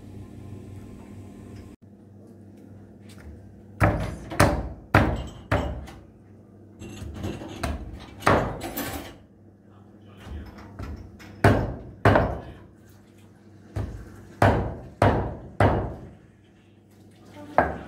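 About a dozen sharp knocks or clatters, spaced irregularly, each ringing on briefly.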